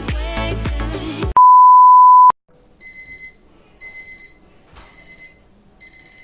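Afrobeat music cuts off about a second in and a loud, steady, high beep tone sounds for about a second. After a moment of silence, an alarm beeps in four bursts about a second apart, waking the sleeper.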